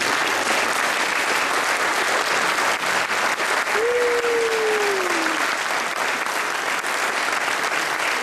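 Wedding guests applauding steadily after the newlyweds are introduced. About four seconds in, a single drawn-out falling tone rises above the clapping.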